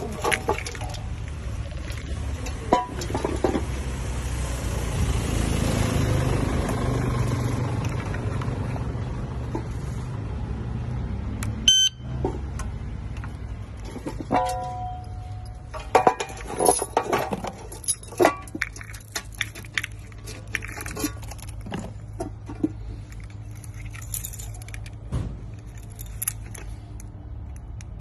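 Handling of a remote-controlled parking lock: clicks and knocks of its key lock, steel cover and parts, over a steady low rumble in the first ten seconds. Short electronic beeps sound about twelve and fifteen seconds in.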